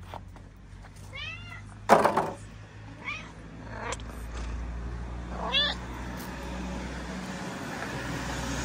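Domestic cats meowing: about five short meows, each rising and falling in pitch, the loudest about two seconds in.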